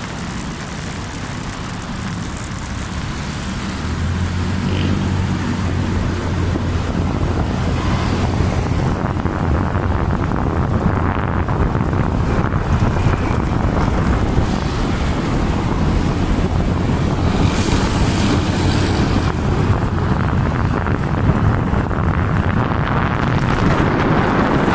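Riding a motor scooter through road traffic: wind rushes over the microphone while the scooter's small engine runs steadily underneath, and the noise grows a little louder as it picks up speed.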